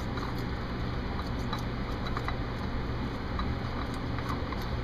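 A steady low hum and hiss, with faint scattered clicks and rubs from gloved hands screwing a new oil filter on by hand.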